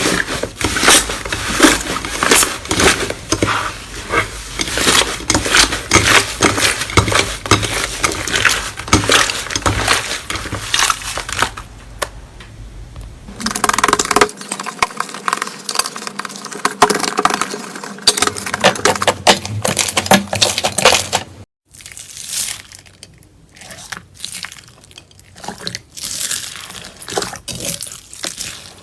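Slime being squeezed, poked and stretched by hand: a dense run of sticky crackles, clicks and pops, broken by abrupt cuts between short clips.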